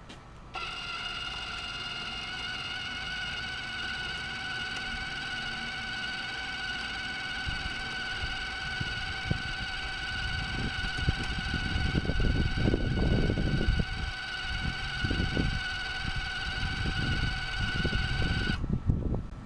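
Wire-feed motor of a Blue Demon 140MSI flux core welder whining steadily as the wire is run through to the gun after a bird nest at the spool. Irregular low knocking and rattling joins it in the second half, and the whine cuts off sharply near the end.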